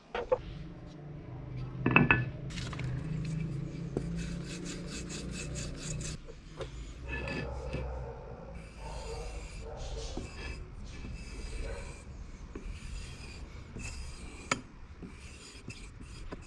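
Steel knife blade, cut from an old brush cutter blade, scraped repeatedly along a small wooden block in runs of quick, dry rubbing strokes. A sharp knock about two seconds in and a click near the end.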